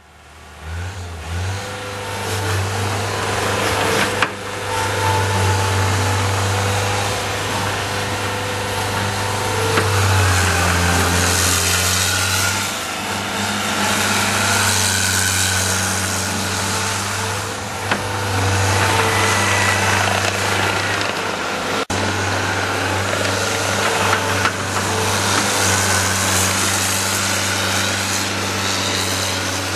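Diesel engine of a John Deere 323D compact track loader running under varying load, its loudness rising and falling a few times as the machine is worked, with a sharp click about four seconds in.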